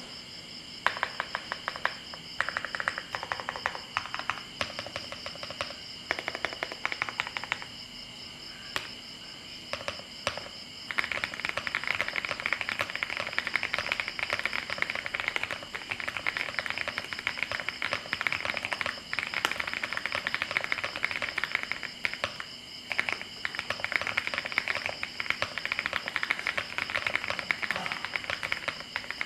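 Typing on a Leobog Hi75C mechanical keyboard with Leobog Reaper linear switches and Cherry-profile keycaps, its case foam-filled and tape-modded, giving a creamy, poppy keystroke sound. The keystrokes come in short runs at first and thin to a few single presses, then become fast continuous typing about eleven seconds in. A faint steady high-pitched tone runs underneath.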